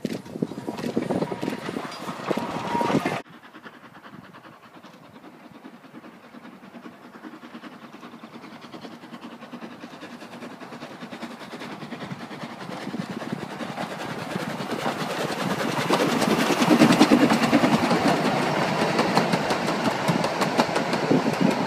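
Wind on the microphone for about three seconds, then a 3 ft gauge steam train approaching. It builds steadily in loudness and is loudest near the end, as the carriages clatter past close by over the rail joints.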